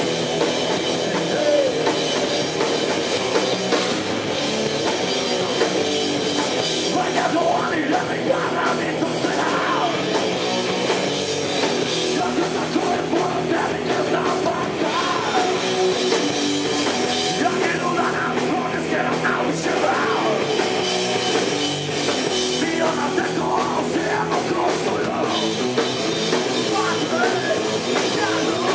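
Live heavy rock band playing: electric guitars and a drum kit, steadily loud throughout.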